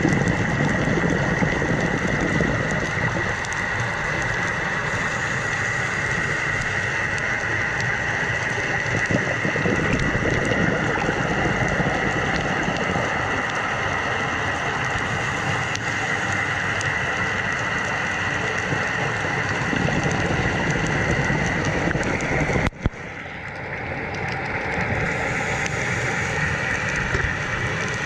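Steady underwater noise picked up by a camera in its waterproof housing: a dull rush with a faint high steady tone. About three-quarters of the way through it drops out abruptly at an edit, then swells back up over a few seconds.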